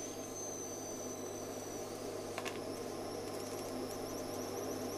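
Faint steady hiss with a low electrical hum underneath, and a single light click about two and a half seconds in.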